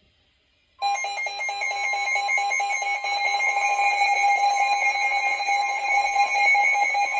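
NOAA weather radio receivers sounding their alert alarm for an incoming warning: after near silence, a loud, steady alarm of several tones starts about a second in, pulsing quickly.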